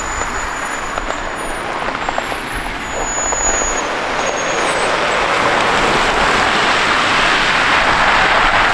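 Road traffic: a steady hiss of cars passing close by, growing louder over the second half.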